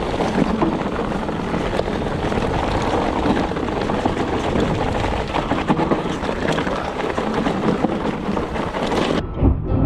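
Mountain bike riding down a rocky, stony trail: tyres crunching and clattering over loose stones, with wind on the microphone. About nine seconds in, the hiss cuts off suddenly, leaving a few low thumps.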